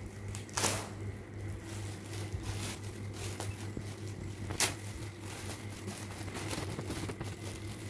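Gold metallic foil gift wrap crinkling and tearing as a small child pulls it off a present, with two sharper rustles, about half a second in and near the middle.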